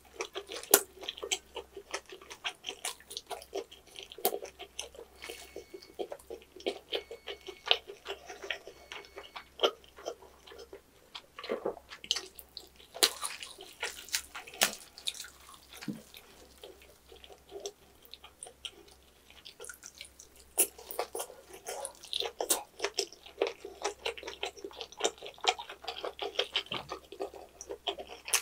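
Close-up wet chewing and lip-smacking of a roast pork knuckle (Schweinshaxe), with rapid irregular smacks and crunches of its chewy, crisp skin.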